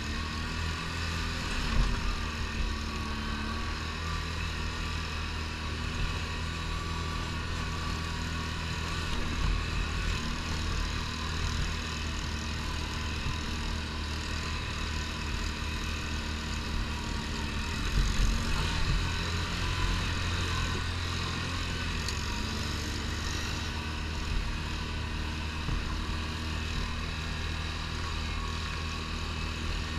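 ATV engine running steadily under way on a gravel track, a continuous low rumble with a few bumps and a brief surge a little past the halfway point.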